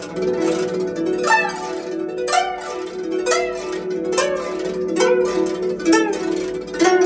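Solo guzheng being played: strong plucked notes about once a second, each followed by notes that bend and slide in pitch, over a steadily repeated middle note.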